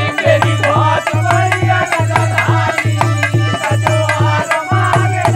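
Dholak played in a steady folk rhythm: deep strokes on the bass head about twice a second, with sharp slaps on the treble head between them. Men's voices sing a folk bhajan over it.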